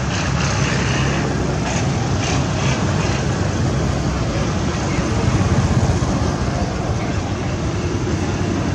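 Steady low rumble of road traffic and engines, holding level throughout, with a few faint short high sounds in the first three seconds.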